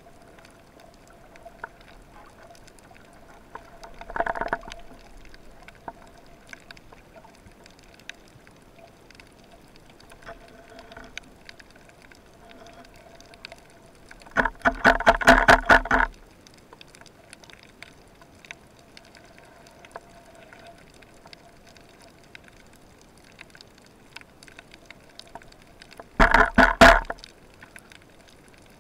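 Underwater sound picked up by a speargun-mounted camera: a steady faint crackle and hiss with a faint hum coming and going. Three loud rattling bursts break in, a short one about 4 seconds in, a longer one of about a second and a half near the middle, and one of about a second near the end.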